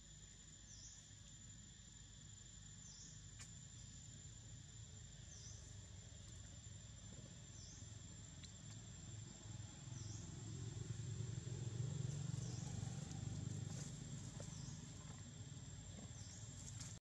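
Faint outdoor ambience of insects: a steady high-pitched whine with a short chirp repeating about every two seconds. A low rumble swells from about ten seconds in and eases off near the end.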